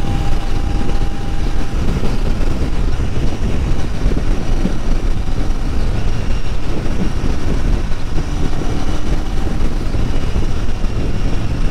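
Royal Enfield Interceptor 650's parallel-twin engine and exhaust running at a steady cruise on the move, mixed with loud wind and road rush.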